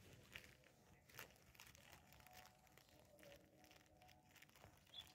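Near silence with a few faint, sharp clicks and crinkling crackles.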